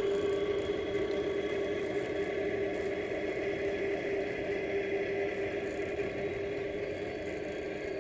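G scale model freight train rolling slowly past on its track. A steady hum is heard over the rolling noise of the wheels, fading slowly as the locomotive moves away.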